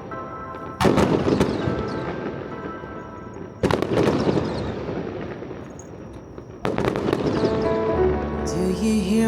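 Fireworks exploding in three big volleys about three seconds apart, each a sudden cluster of sharp bangs that fades away, over music playing with the show; a singing voice comes in near the end.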